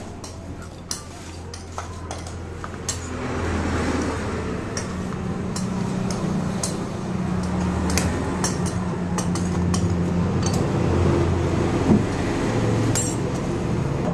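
Flat metal scrapers clinking and scraping on a stone slab as hot sugar syrup is scraped up and folded: scattered sharp metallic clicks over a steady low hum.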